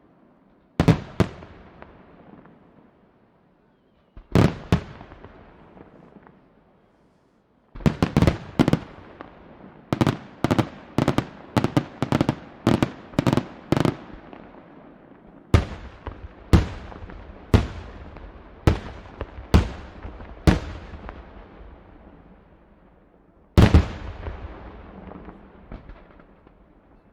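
Aerial fireworks shells bursting in the sky, sharp loud bangs each followed by a fading echo. They come in clusters: a pair, another pair, then a rapid volley of about two bangs a second, then single bangs about a second apart, and a last cluster near the end.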